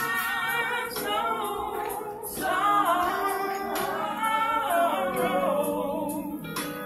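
Music with a sung melody, the voice holding long, wavering notes.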